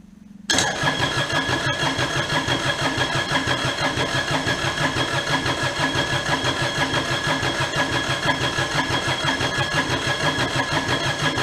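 Kubota D722 three-cylinder diesel engine with a steady rhythmic chug that starts abruptly about half a second in, while its fuel system is being bled of air.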